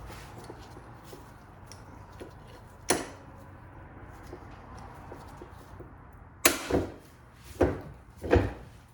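Sharp knocks of metal being struck as a U-joint bearing cap is driven out of a double cardan driveshaft yoke. There is one knock about three seconds in, then a quick run of about five louder knocks near the end.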